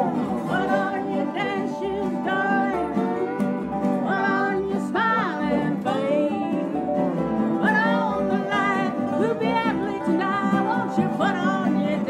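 Acoustic country band playing: a lap-style resonator guitar played with a slide bar, its notes gliding up and down, over a steady upright bass line and strummed acoustic guitars.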